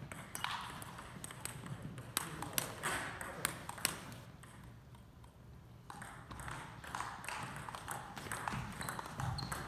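Table tennis ball clicking off paddles and bouncing on the table in rallies: sharp ticks at irregular intervals, with a pause of about two seconds in the middle.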